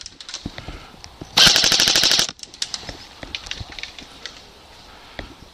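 Airsoft rifle firing one rapid full-auto burst of about a second, starting about a second and a half in, with scattered fainter pops of other airsoft guns before and after.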